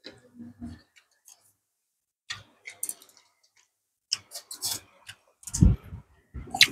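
Eating at the table: scattered light clicks of chopsticks and a spoon against ceramic rice bowls, with a few louder, low mouth or chewing sounds near the end.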